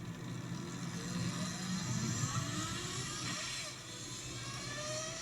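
Lightning LS218 electric motorcycle accelerating hard, its electric motor whining and rising in pitch over and over, over wind and road rush. The rear tyre spins up at the launch.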